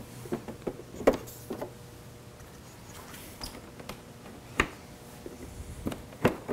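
Scattered light clicks and taps of a quarter-turn fastener being turned and small body panels being lifted off a Can-Am Spyder F3, the sharpest at about one second, a little past four and a half seconds and near the end.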